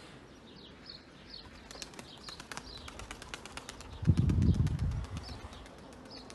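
Pigeon wings flapping and clattering in a quick run of clicks, while a small bird chirps repeatedly in short falling notes. A brief low rumble about four seconds in is the loudest sound.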